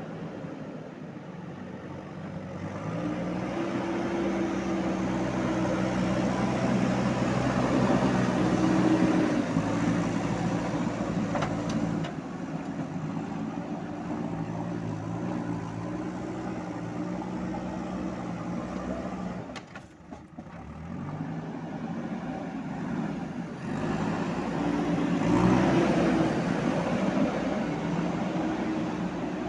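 JCB 3DX backhoe loader's diesel engine working under load. It revs up about three seconds in and holds, dips briefly about two-thirds of the way through, then revs up again.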